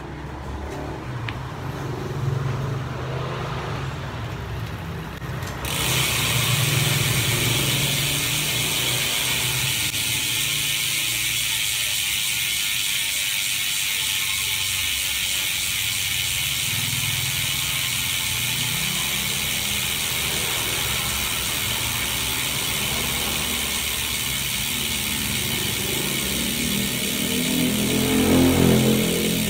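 Road bike's rear freehub clicking steadily as the rear wheel spins freely on a stand. The pawls make a continuous high buzz that starts abruptly about six seconds in. There is lower mechanical rumbling before it and a louder low swell near the end.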